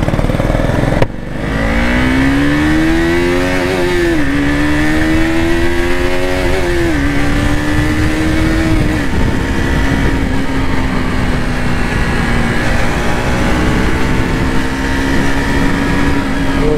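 KTM RC 200's single-cylinder engine accelerating up through the gears. The pitch climbs, drops at an upshift about four seconds in, climbs again and drops at a second upshift about seven seconds in. After a smaller drop near nine seconds it settles to a steady cruise.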